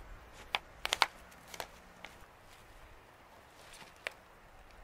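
A few sharp clicks and knocks: a quick cluster of four or five between about half a second and a second and a half in, and a single click near the end.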